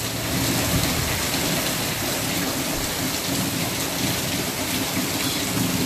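Steady rain falling and splashing on surfaces, an even hiss with no pauses.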